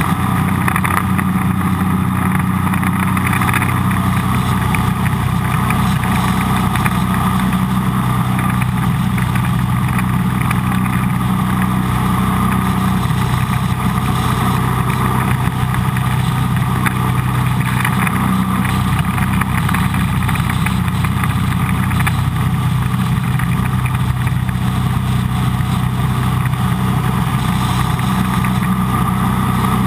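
Jet boat's engine running steadily under way, a constant low drone with a steady rushing noise over it.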